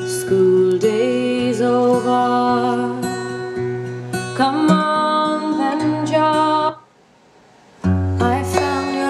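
Background music: acoustic guitar strumming with a melody line. It breaks off to near silence for about a second near the end, then starts again.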